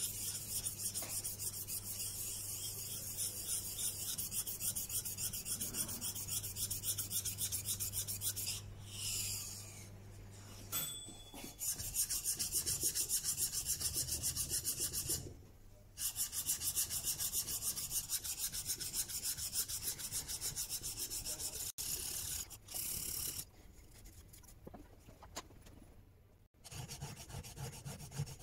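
Steel chisel back being lapped on a wet diamond plate: quick, even back-and-forth scraping strokes in several runs with short pauses. The back is being flattened to remove a large burr.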